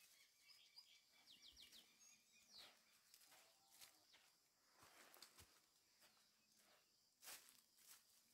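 Near silence: faint outdoor ambience with a few small bird chirps about a second and a half in, and scattered faint rustles, the clearest near the end.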